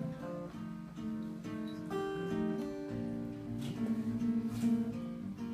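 Acoustic guitar playing the instrumental introduction of a song, strummed and plucked chords ringing on, with no singing.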